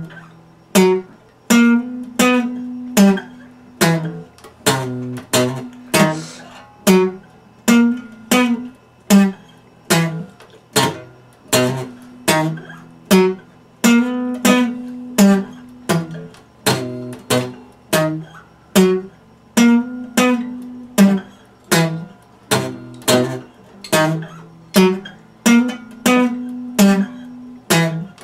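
Epiphone steel-string acoustic guitar played in a steady, repeating pattern of plucked chords, about one and a half strikes a second, each ringing and dying away before the next.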